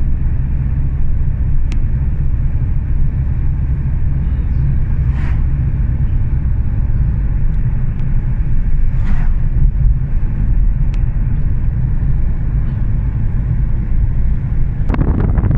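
Steady low rumble of a car's engine and tyres heard from inside the cabin while driving along a road. A louder rushing noise comes in near the end.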